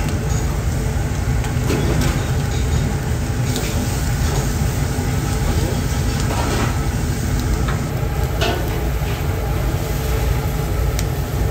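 Fish and squid sizzling on a hot restaurant grill over a steady low rumble, with a few sharp clicks of metal tongs on the grate.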